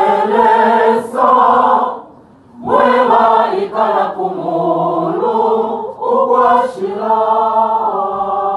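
Choir singing together in harmony, holding chords in short phrases, with a brief break about two seconds in before the singing resumes.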